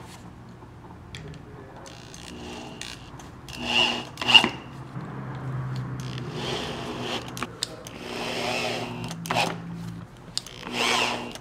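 Short Phillips-head screws being driven through a black metal trunnion plate into a wooden bed side rail, in several separate stretches of driving. Two sharp metallic clicks come about four seconds in.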